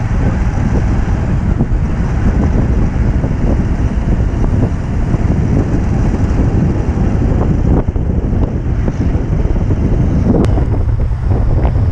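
Wind buffeting the microphone, a loud, steady low rumble, with a few faint clicks near the end.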